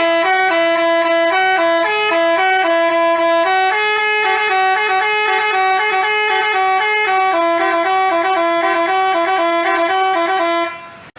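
Basuri telolet musical bus horn playing a fast, repeating tune that hops between a few notes, with several horn tones sounding together. It cuts off abruptly near the end.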